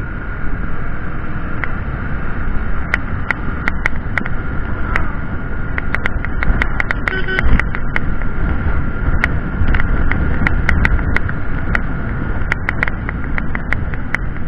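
A motorcycle on the move, heard through an action camera: a heavy, steady rumble of wind and engine, a thin steady whine, and frequent sharp clicks scattered throughout.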